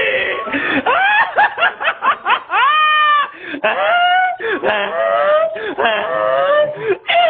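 A man laughing hard, with high, drawn-out laughs whose pitch rises and falls, and a short pause partway through.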